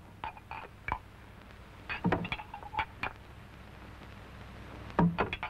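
Coins clinking as they are counted out by hand: a scatter of short metallic clinks, with clusters about two seconds in and near the end.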